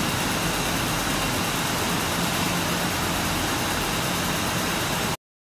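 Steady machinery noise of a juice bottling line in a factory hall: an even hiss and hum with faint steady tones and no distinct clinks. It cuts off suddenly near the end.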